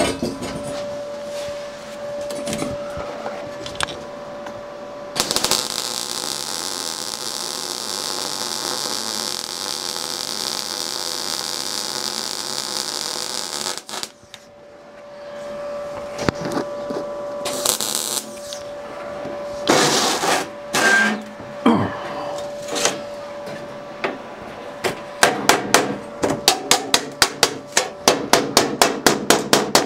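MIG welding arc hissing steadily for about eight seconds while a seam on a sheet-steel ash pan is welded, then cutting off, over a steady machine hum. Near the end, quick hammer blows on the steel pan, about three a second.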